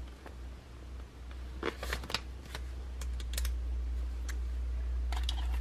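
Paper banknotes and binder envelope pages being handled: a scattering of short, crisp rustles and flicks. A steady low hum runs underneath.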